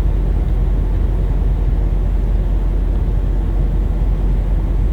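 Steady low rumble of a moving vehicle, road and engine noise heard from inside, with no distinct events.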